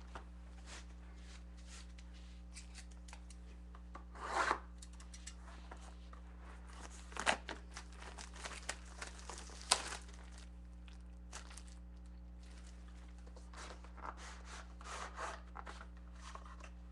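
A sealed trading-card hobby box being opened by hand: scattered tearing and crinkling of its plastic wrap and rubbing of cardboard, in short irregular spells with the loudest tears about four seconds in and between about seven and ten seconds in.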